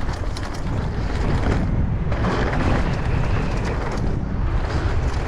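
Mountain bike rolling fast down a dirt trail, with wind buffeting the microphone in a steady low rumble and tyre noise over the dirt. A few sharp clicks or knocks from the bike sound in the first second.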